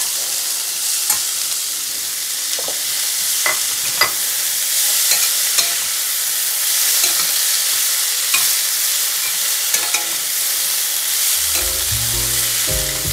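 Chopped okra, onion and tomato sizzling in a little oil in a stainless-steel pan, stirred with a slotted steel spatula that clicks and scrapes against the pan now and then. Background music comes in near the end.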